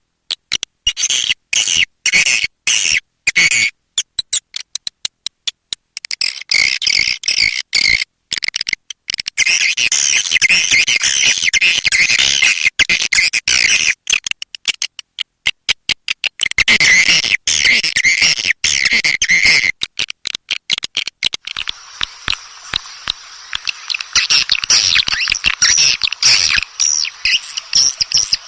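Swiftlet twittering calls played as a lure sound for a swiftlet house: dense high chirping that cuts in and out in rapid abrupt chops. About twenty seconds in it changes to a thinner, steadier twitter with a faint hum underneath.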